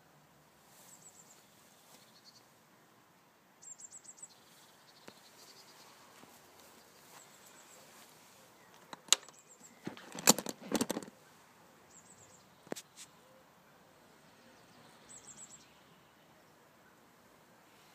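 Small birds chirping in short, high trills over quiet outdoor background. About nine to eleven seconds in, a brief cluster of sharp knocks and rustling is the loudest sound.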